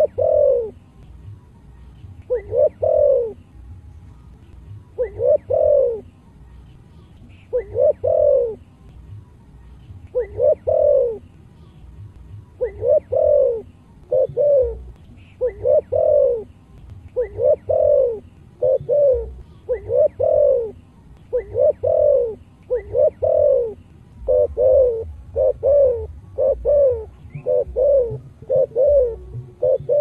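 Spotted dove cooing: short low coos, about every two and a half seconds at first, then coming faster, about once a second or closer, from about halfway on.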